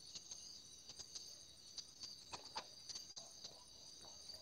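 Faint steady high trill of crickets, with a few soft clicks scattered through it.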